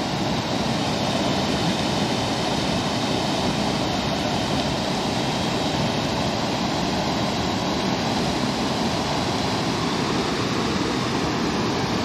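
Steady rush of water pouring over a small mill-dam spillway into the stream below.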